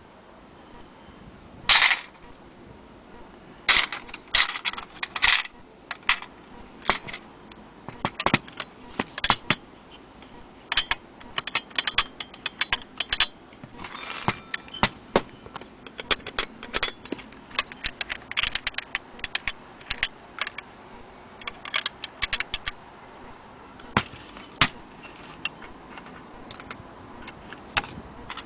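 Irregular sharp clicks and knocks, some single and some in quick clusters, from the metal parts of an antique longcase clock movement being handled.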